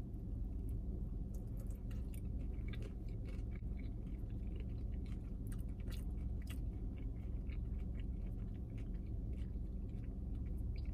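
Close-up chewing of fried chicken: many small crunches, clicks and smacks of the mouth, over a steady low hum inside a car.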